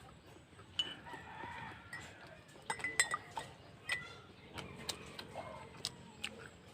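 Spoon and fork clinking against a plate while eating, a sharp clink about once a second.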